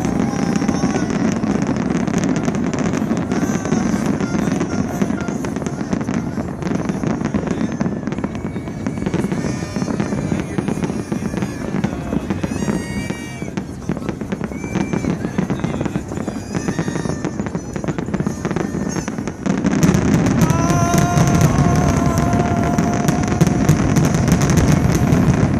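Fireworks display: a continuous barrage of bangs and crackling, which grows louder and denser about 19 seconds in.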